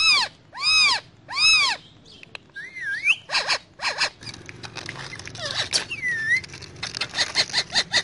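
Rose-ringed parakeet calling: three loud rising-and-falling calls in the first second and a half, then quicker, quieter calls and chatter, ending in a run of rapid repeated chirps.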